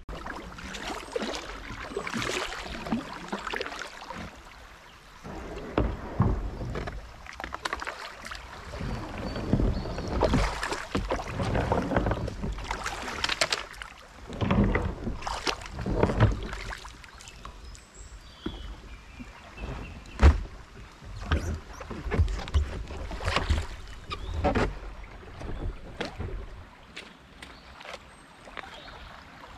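Kayak paddling: the paddle blades splash into the water in uneven strokes a second or two apart. As the kayak runs into stony shallows there is a sharp knock about twenty seconds in, typical of the paddle or hull striking rocks.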